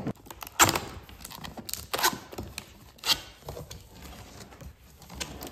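Cardboard box lid being pulled open, its sealing tape tearing free and the cardboard crackling in three sharp rips about a second apart, with lighter scraping and rustling between.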